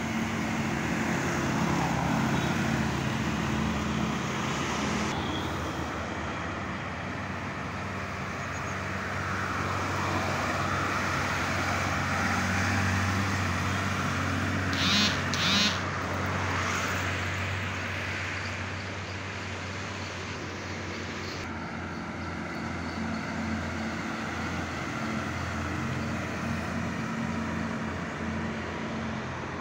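Heavy diesel trucks passing one after another, engines running under load, with the hum and tyre noise rising and falling as each goes by. About halfway through, two short high-pitched horn toots.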